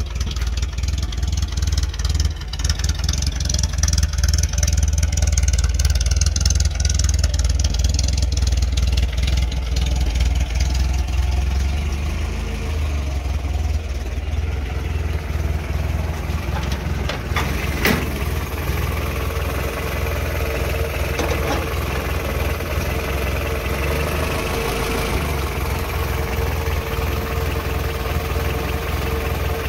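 1953 Willys pickup's engine idling steadily, with a couple of sharp clicks about two-thirds of the way through; near the end it is heard close over the open engine bay, brighter and with a steady hum.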